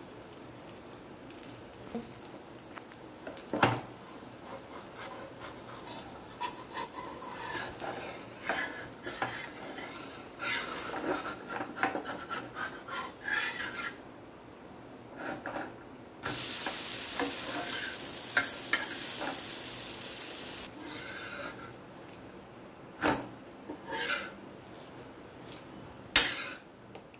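Steel spatula scraping and tapping on a flat dosa pan as a crisp roast dosa is loosened from the pan and folded, over a light frying sizzle. A steady hiss runs for about four seconds in the middle, and there are a few sharp taps of metal on the pan.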